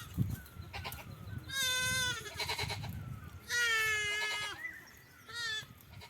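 Goats bleating: three quavering bleats, the second the longest and loudest and the last a short one.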